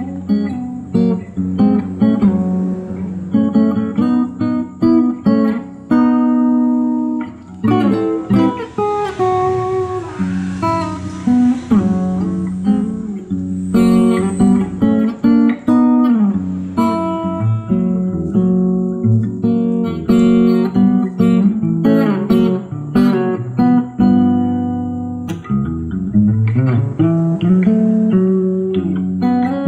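Background music: a guitar playing a quick run of plucked notes.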